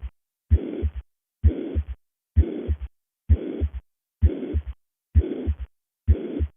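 Recorded heart sounds with the murmur of mitral regurgitation, about one beat a second. After each first heart sound comes a murmur of even loudness that fills systole up to the second heart sound: a uniform, holosystolic murmur.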